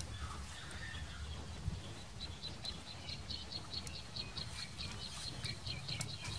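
A small bird chirping in a rapid, even series of short high notes, about five a second, starting about two seconds in, over a steady low outdoor rumble.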